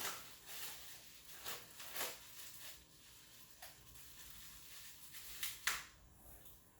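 A few light, scattered knocks and taps as the pieces of a powder-coated steel differential brace are handled, the most distinct one near the end.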